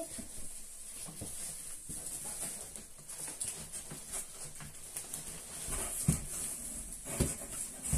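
Cardboard box rustling and scraping as a heavy boxed air fryer is worked out of it by hand, with two dull knocks about six and seven seconds in.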